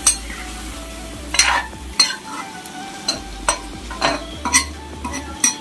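A metal spatula scrapes and knocks against a black wok as duck curry with potatoes is stirred, about one stroke every half second, over the steady sizzle of the curry frying.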